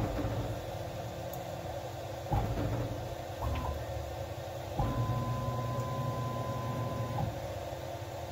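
Stepper motors of a CNC-converted Grizzly G0704 mill driving the axes through an automatic touch-probe cycle to find the centre of the workpiece. There are several separate moves, each starting with a click, and the longest one, about halfway through, carries a steady high whine for a couple of seconds.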